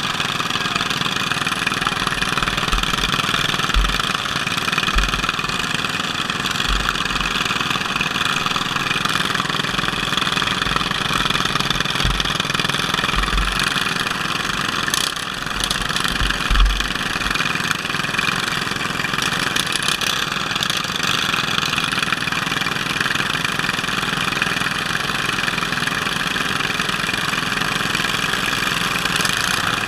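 Case lawn tractor's engine running steadily, close up, with occasional low thumps during the first half.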